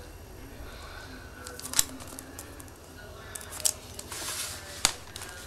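Handling noises of an iPad being lifted out of its box and set down: a few sharp clicks and taps, and a brief rustle of its plastic film about four seconds in.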